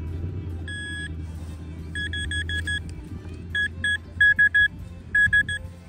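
Metal detector beeping as it is swept over a target still in the dug hole: a single longer beep, then quick runs of short beeps at one steady pitch. A steady low rumble runs underneath.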